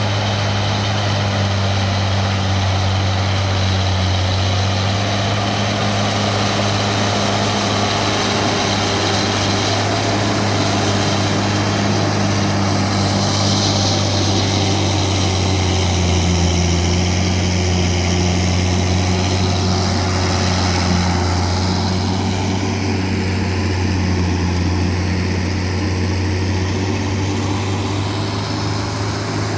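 A John Deere 7800 tractor's diesel engine working hard, pulling a cultivator through the soil. The engine note stays steady, with a slight shift about halfway through.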